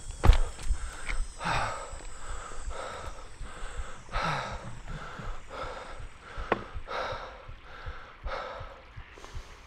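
A longboarder's heavy, quick breathing, a breath about every second. A sharp knock comes just after the start and a smaller one about two-thirds of the way through.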